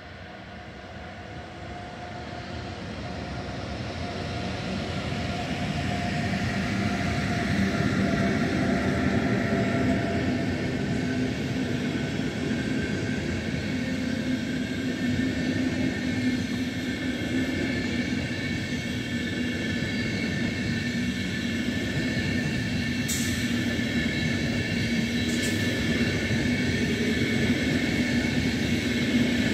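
Intercity train hauled by a DB Class 101 electric locomotive rolling past, the noise of the wheels on the rails building over the first several seconds and then holding steady as the coaches go by. Steady whining tones ride over the rolling noise, and there are two short sharp clicks near the end.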